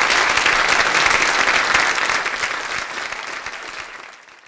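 Theatre audience applauding, a dense clapping that fades away over the last two seconds or so.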